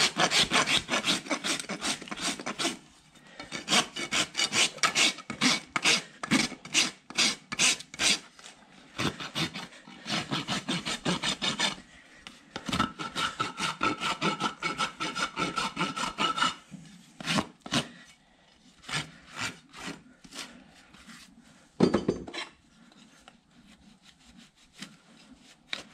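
Farrier's hoof rasp filing a horse's hoof wall: runs of quick back-and-forth scraping strokes, with a steady high tone sounding alongside them for a few seconds in the middle. The strokes grow sparser and fewer in the second half.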